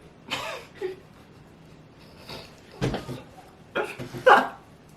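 Several short wordless vocal noises, like hums, grunts and a cough-like sound, from people reacting as they eat, the loudest near the end, with a low thump about three seconds in.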